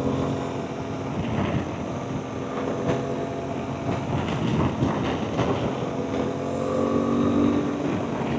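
Aprilia Tuareg 660 parallel-twin engine running through an Akrapovic full exhaust system while the bike is ridden, with wind noise on the microphone. The engine note rises a little near the end.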